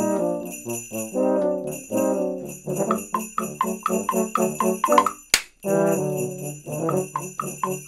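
Multitracked euphoniums playing the tune over steady shaken sleigh bells. Temple blocks clip-clop quickly, about five strokes a second, from about a third of the way in, and a wooden slapstick whip cracks once just past the middle.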